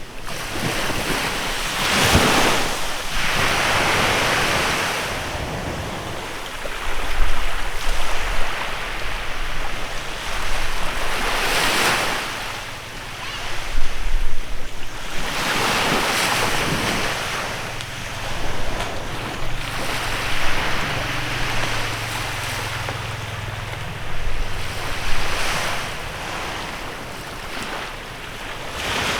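Small waves breaking and washing onto a beach, each wash swelling and fading every few seconds. Wind gusts buffet the microphone now and then.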